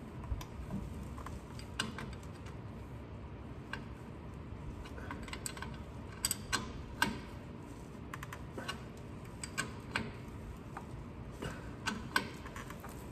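Scattered, irregular metallic clicks and taps of a hand wrench working on the drive shaft bolts as they are snugged down.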